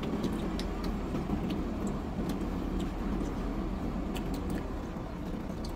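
Steady low rumble of a car's cabin with the vehicle running, with scattered small clicks and rustles from food being handled and eaten.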